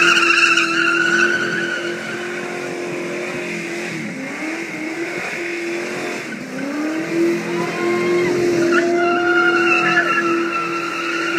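Ford XA Falcon coupe doing a burnout: the engine is held at high revs, falling off briefly twice around four and six seconds in and climbing back each time. The spinning rear tyres squeal loudly at the start and again from about nine seconds in.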